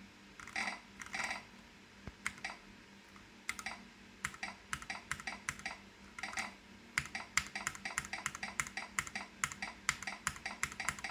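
Keys on a Keychron Q1 mechanical keyboard being pressed over and over, the escape key tapped repeatedly to test it. The clicks are scattered at first, then settle into about three to four a second in the second half. The escape key is dying and sometimes fails to register a press.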